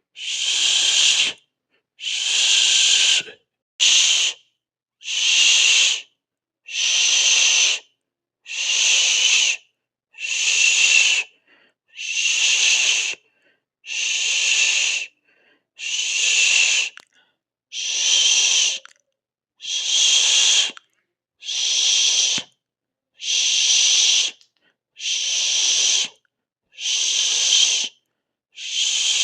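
A person making a drawn-out 'sss' hiss with the mouth, over and over, about one hiss every two seconds, each lasting around a second and a half with a short silence between.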